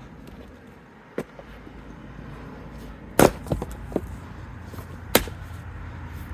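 Hytest Tasmanian axe chopping firewood: two hard strikes about two seconds apart, with a lighter knock before them and smaller knocks between.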